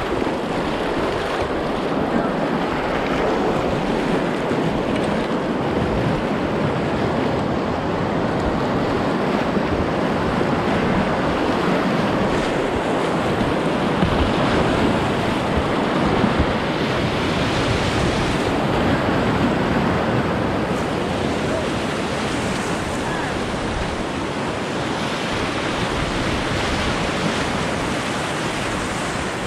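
Whitewater rapid rushing and churning steadily around a kayak running it, with wind on the microphone.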